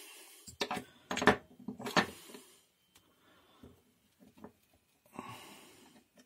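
Metal tweezers picked up and clicking against the workbench and a voltage regulator's brush holder: a few sharp clicks and knocks in the first two seconds, then light scraping and a short hiss near the end.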